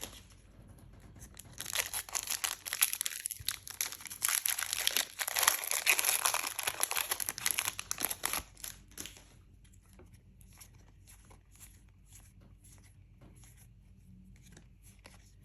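A foil booster pack wrapper being torn open and crinkled for several seconds, followed by faint soft ticks of trading cards being handled.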